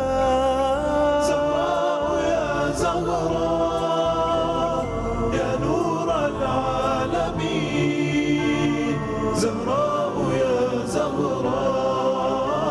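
Arabic devotional song (nasheed): voices in chorus singing a drawn-out, wavering melody with long held notes, over musical backing with occasional sharp beats.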